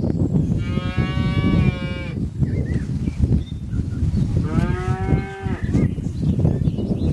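A farm animal calling twice in long drawn-out calls, one at about half a second in and a shorter, lower-pitched one past the middle, over steady low background noise.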